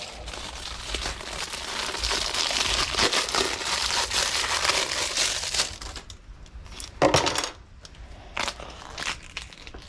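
Packaging crinkling as a new bicycle inner tube is unwrapped: dense crackling for about six seconds, then fainter, with one louder crackle about seven seconds in.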